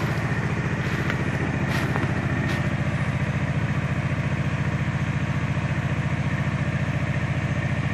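Engine idling steadily with a fast, even pulse, from the vehicle that hauls the cacao cart. A couple of light knocks come about two seconds in.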